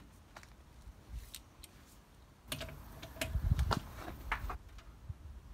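A breaker bar and socket clicking and knocking against a car's wheel nuts as they are worked loose by hand: irregular sharp metallic clicks with a few dull thumps, busiest in the middle.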